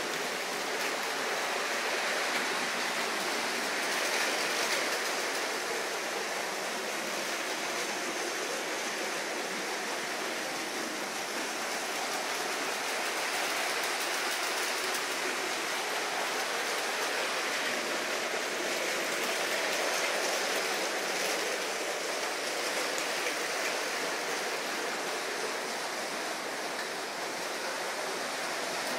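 Lego trains running on plastic track: a steady rushing rattle of wheels with no distinct tones, swelling slightly a few times.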